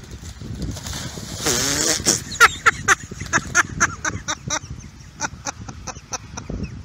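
A dog splashing as it runs and wades through shallow floodwater, with a run of sharp irregular splashes starting about two seconds in.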